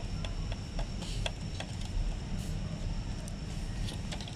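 Irregular light clicks and ticks of a screwdriver working at the plastic housing and clips of a Mercedes W213 E-Class centre air vent assembly, about one or two a second.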